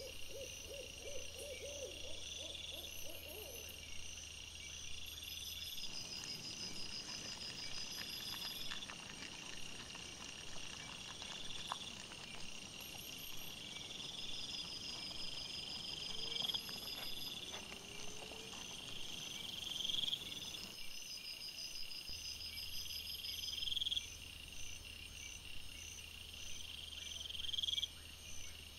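Night insects, crickets or katydids, chirping in a steady repeating chorus of about one phrase every two seconds. Near the start there is a short run of quick repeated lower calls, and a faint low electrical hum comes and goes.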